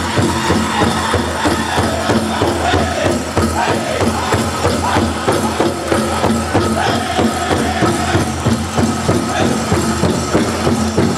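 Powwow drum group singing a men's chicken dance song, voices carried over a steady beat on a large shared drum.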